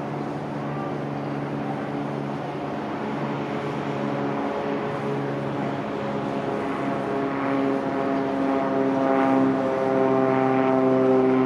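Propeller drone of a Cessna TU206F Turbo Stationair's turbocharged six-cylinder engine at climb power, growing steadily louder as the plane comes closer.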